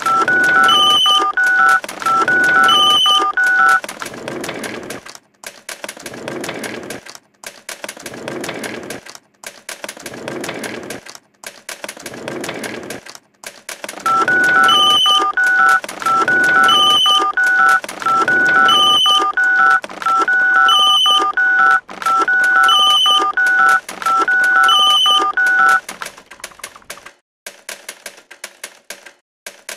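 Electronic telephone-like beeping in a repeating pattern: a steady note under a stepping figure, with a higher blip about every two seconds. It breaks off for about ten seconds of irregular noisy clatter, then returns. Typewriter-like clicking starts near the end.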